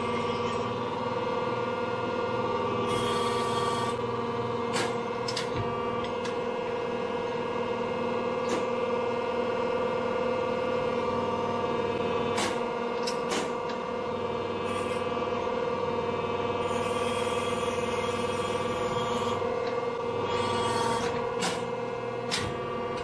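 Diacro 17-ton dual-pump hydraulic press brake running, its electric motor and hydraulic pump giving a steady hum. Occasional sharp metal clicks and knocks come as the steel strip is set against the dies.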